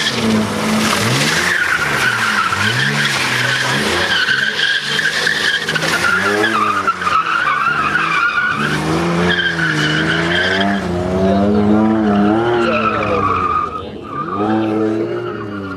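BMW E30 coupé drifting: the tyres squeal with a steady high screech while the engine's revs rise and fall with the throttle. The sound fades near the end as the car moves away.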